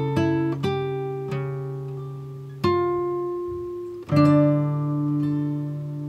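Background music on acoustic guitar: plucked notes and chords that ring out and fade, with a fresh chord struck about two and a half seconds in and another about four seconds in.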